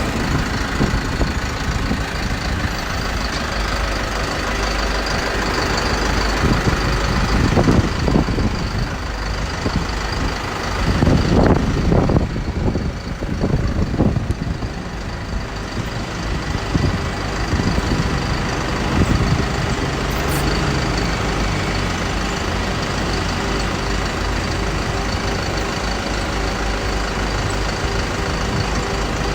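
Diesel engine running steadily at idle, with a few louder surges around the middle.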